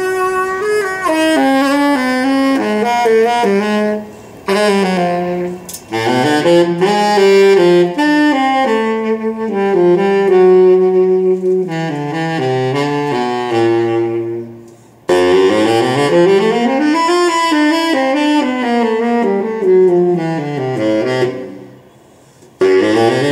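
Baritone saxophone playing an unaccompanied melody, a single line moving through low and middle notes with slides between some of them. Its phrases are broken by short pauses: about four seconds in, around fifteen seconds, and shortly before the end.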